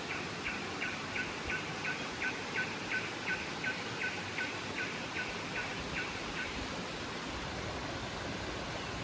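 Steady rush of a forest river. Over it an animal calls in a fast run of about twenty short notes, nearly three a second, each dropping in pitch, stopping about two thirds of the way through.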